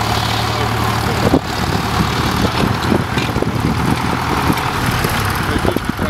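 Ford Major tractor engine running steadily under load as it pulls a mounted plough through the soil, with irregular knocks or gusts over it from about a second and a half in.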